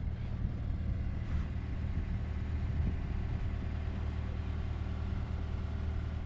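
A vehicle engine running steadily, a low, even hum.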